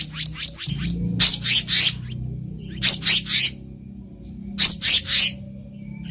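Black-naped monarch (kehicap ranting) calling in groups of three sharp, high notes, a group about every one and a half to two seconds. A faint steady low hum runs underneath.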